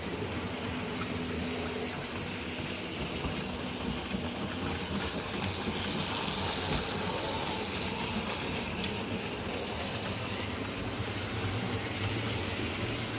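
Model railway locomotive running round the track pulling wagons, with a steady motor hum and wheel noise. One sharp click about nine seconds in, like wheels over a rail joint.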